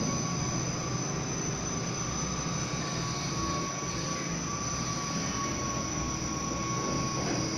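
Steady rushing background noise with a faint, steady high whine through it.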